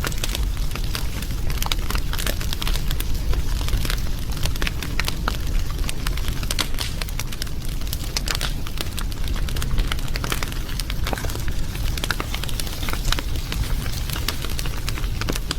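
Wood fire burning with a steady low rumble and dense, irregular crackling and popping throughout.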